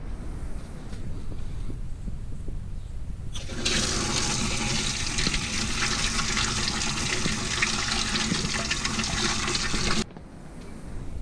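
Water running from an outdoor tap over apricots held under it to be rinsed, splashing onto pebbles below. The flow starts about three and a half seconds in and cuts off suddenly near the end.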